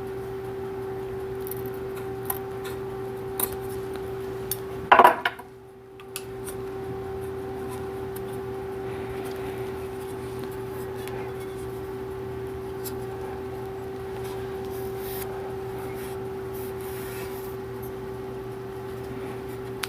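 Scissors and small hand tools being handled while an armrest cover is trimmed and its edges folded over, with scattered sharp clicks and one loud clatter about five seconds in, over a steady low hum.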